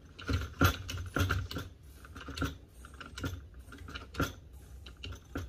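Hand-pumped hydraulic cable lug crimper at work: a string of sharp mechanical clicks, about one or two a second, from the handle strokes as the dies are driven closed on a 2/0 cable lug.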